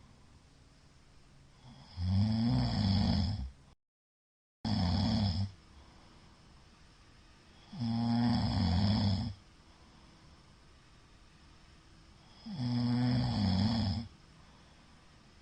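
A middle-aged man snoring very loudly in deep sleep, the uploader says heavy drinking made it worse. There is one long snore about every five seconds, each lasting a second or so, with quiet breathing between. The sound drops out completely for a moment about four seconds in.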